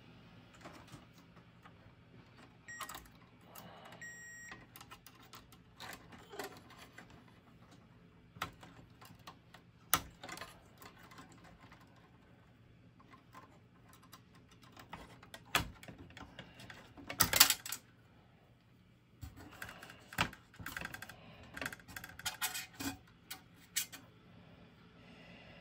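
Irregular small clicks, taps and rattles of hands handling wiring and small parts inside the open metal chassis of a cassette deck while a faulty fuse is being replaced, with the busiest clatter about two thirds of the way in. Two short high beeps come about three and four seconds in, over a faint steady low hum.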